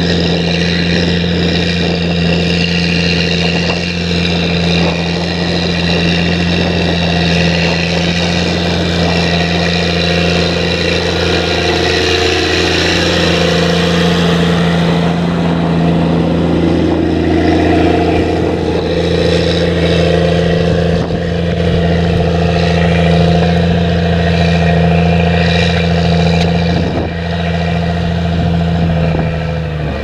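Challenger MT765B rubber-tracked tractor's diesel engine running steadily under load while pulling a seven-furrow Gregoire Besson plough through the ground: a constant low drone.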